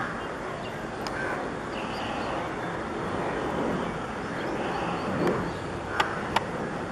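Steady, distant jet noise from a Boeing 737 airliner on final approach, with gear down, blended into a noisy city outdoor background with scattered bird calls. Two sharp clicks come close together about six seconds in.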